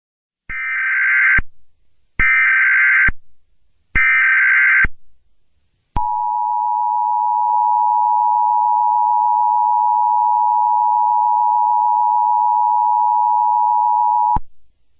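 Emergency Alert System header: three bursts of buzzing digital data tones, each just under a second long, then the EAS attention signal, a steady dual tone held for about eight seconds that cuts off abruptly. It is the alarm that opens an emergency alert.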